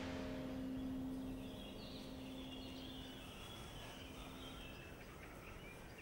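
The tail of a church bell's ringing dies away in the first few seconds, giving way to small birds chirping over faint outdoor background noise.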